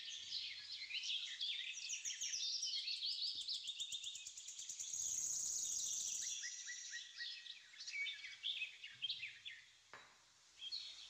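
Small birds chirping and singing, many quick high calls overlapping, with a fast high trill for about a second midway.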